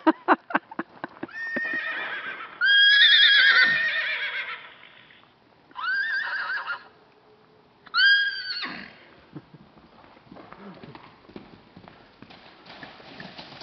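Horse whinnies: a long, loud, quavering whinny about three seconds in, then two shorter whinnies around six and eight seconds in, after a quick run of hoofbeats at the start.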